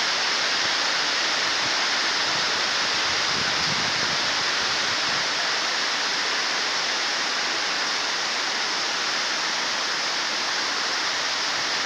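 Rain falling steadily, a dense, even hiss with no letting up.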